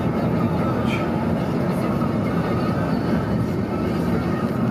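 Steady low road and engine rumble inside a car's cabin, the car cruising at freeway speed.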